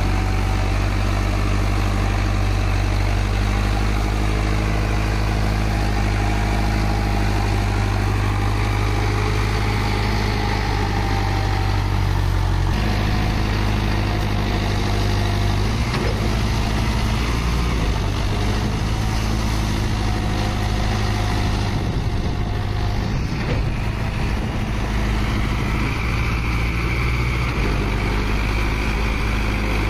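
Mahindra Arjun Novo 605 DI 4WD tractor's four-cylinder diesel engine running under load as it drags a loaded trolley through deep mud. The steady engine note shifts a few times, about a third of the way in and again near the end.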